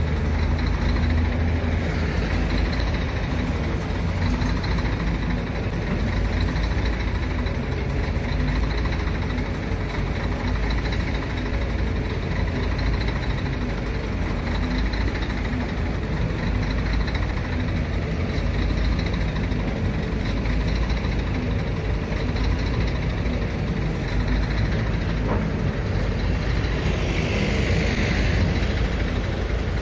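Heavy diesel engines running steadily at low revs, a deep even rumble from the amphibious Hitachi EX130 excavator and the lowbed truck beside it. A brief hissing swell comes in near the end.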